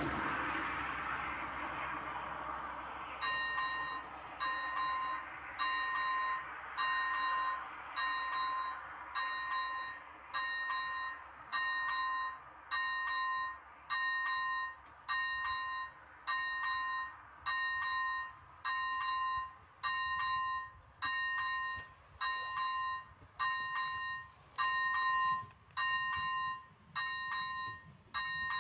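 Electronic ZV-01 level-crossing warning bell sounding, starting about three seconds in: short ding-like tones repeating about once a second, signalling an approaching train. A passing car fades away in the first seconds.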